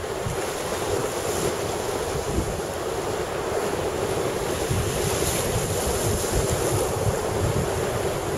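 Sea surf washing over shore rocks, a steady rush, with wind buffeting the microphone in a rough low rumble.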